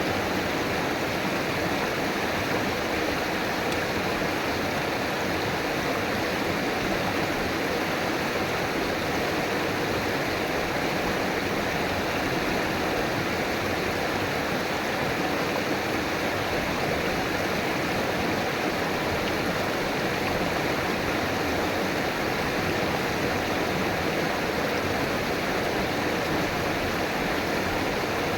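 River water flowing and rushing steadily over rocks, a constant, even wash of water noise.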